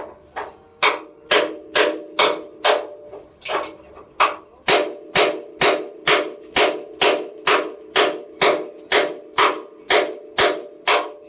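Hand hammer striking steel about twice a second, knocking out rivets from a vehicle chassis frame, each blow ringing through the frame.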